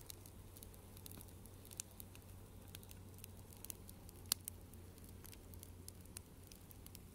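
Open wood fire crackling: scattered sharp pops and snaps at irregular intervals, one louder pop about four seconds in, over a faint steady low hum.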